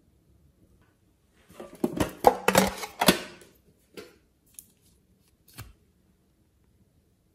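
Plastic clay piping tube handled close to the microphone: a dense run of clicks and crinkly rustles, then a few single sharp clicks.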